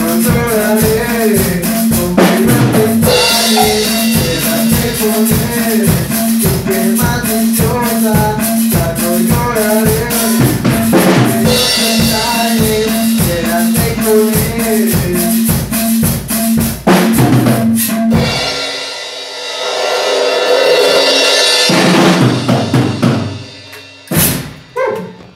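Live home band playing: a drum kit keeps a steady beat under an electronic keyboard melody. The beat stops about 18 seconds in, giving way to a wash of cymbals and a few last hits that die away near the end.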